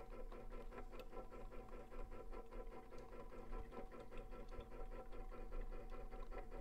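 Faint, dense crackling and ticking over a steady hum.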